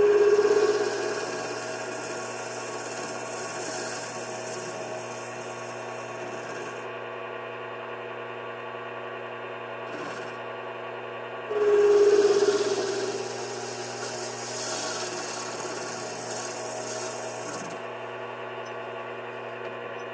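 Mini metal lathe running at about 1000 rpm while facing the end of a part: a steady motor and gear hum under the hiss of the cutting tool. The cut comes in two passes, each opening with a short loud tone as the tool bites in.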